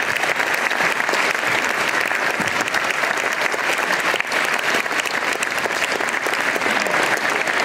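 Audience applause: many hands clapping steadily.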